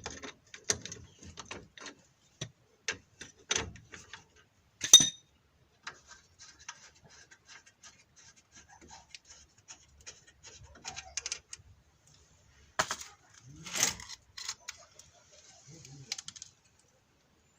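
Metal brake parts and hand tools clinking and clattering as they are handled during brake caliper work, with one sharp metal clank about five seconds in and clusters of rattling clicks later on.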